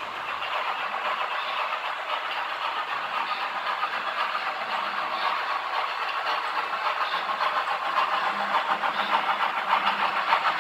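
Model trains rolling along the layout's track: a steady rushing clatter of wheels and motors over the rails with a fast run of small ticks, slowly getting louder as they come closer.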